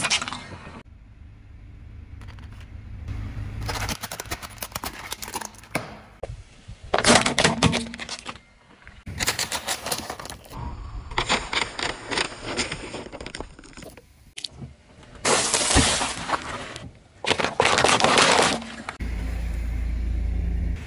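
A car tyre rolling over and crushing one row of objects after another, plastic toys and drink bottles among them: a string of short bursts of cracking and crunching, each a second or two long, with a low rumble between them.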